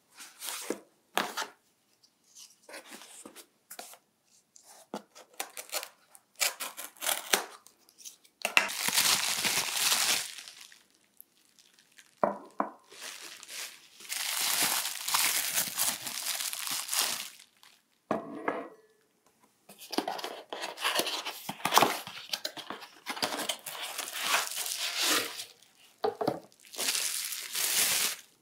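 Packaging being torn open and wrapping paper crinkling in bursts of a second or more, between short handling knocks as ceramic bowls are unpacked and set on a table.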